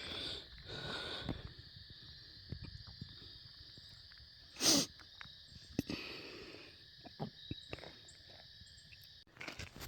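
Steady insect chorus, a continuous high trill that stops suddenly near the end. Scattered light clicks, and one short noisy burst about halfway through.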